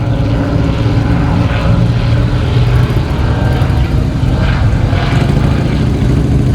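P-51 Mustang warbirds' Packard Merlin V-12 engines running in flight, a loud, steady low drone.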